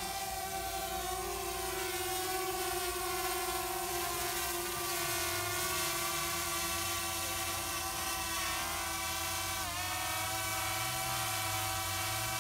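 DJI Mavic Air quadcopter drone hovering overhead: the steady whine of its propellers and motors, with a brief dip in pitch about ten seconds in.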